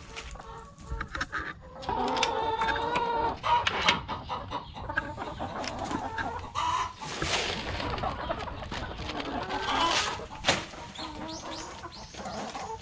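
A flock of brown laying hens clucking on and off, busiest a couple of seconds in, with a few sharp clicks mixed in.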